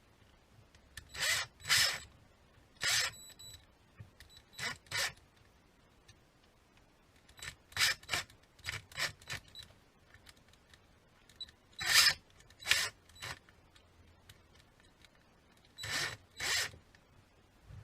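Irregular short clicks, scrapes and rubs of hand tools and small parts being handled, in bursts of one to three with pauses between; one click about three seconds in rings briefly like metal.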